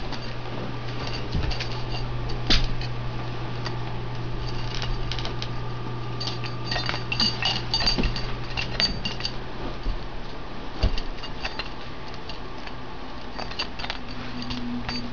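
Greyhound working a squeaky toy with its mouth: scattered clicks and short high squeaks, busiest in the middle, with one sharper knock early on. A steady low hum runs underneath.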